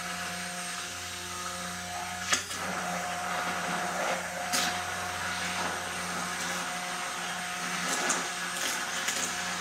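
Immersion stick blender running steadily on its highest setting in a cup of mayonnaise as the emulsion thickens, with a few brief sharp noises along the way.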